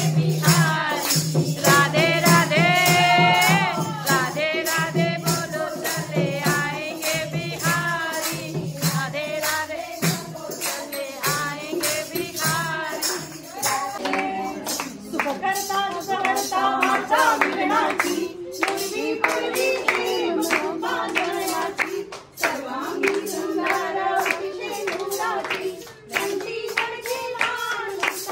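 A group of women singing a devotional bhajan together, kept in a steady beat by hand clapping of about two to three strokes a second.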